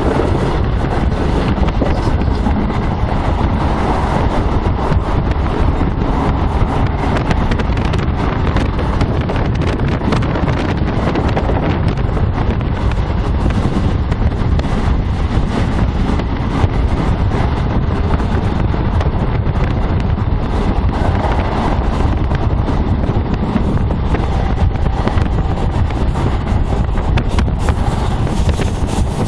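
Passenger train running at speed, heard from inside the carriage: a steady loud rumble of wheels on the rails with wind buffeting the phone's microphone.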